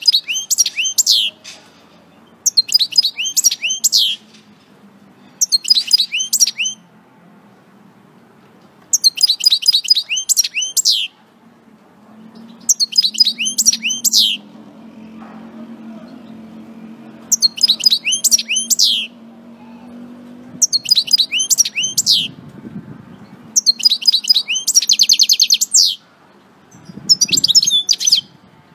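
European goldfinch singing in short bursts of rapid, high twittering phrases, about nine of them, each a second or two long with pauses between.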